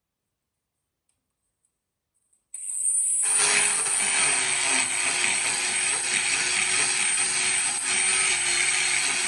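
Near silence, then about two and a half seconds in an electric power tool starts up and runs steadily with a high whine, working on the metal of the knife.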